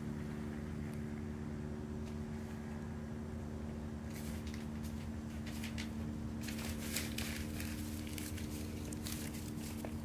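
Wood fire crackling in a metal fire pit: clusters of sharp crackles about four seconds in and again from about six and a half seconds until near the end, over a steady low hum.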